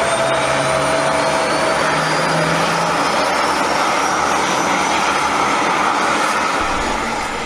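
The Bayraktar Kizilelma's jet engine running loudly, a steady roar with a high whine that slowly rises in pitch, beginning to fade near the end.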